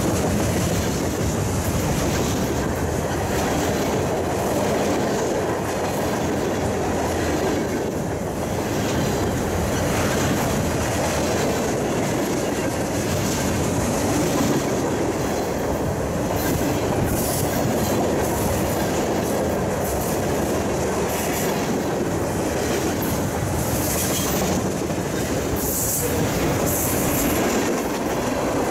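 Freight cars rolling past close by: a steady rumble of steel wheels, with clickety-clack over the rail joints. Brief high-pitched wheel squeals come through in the second half.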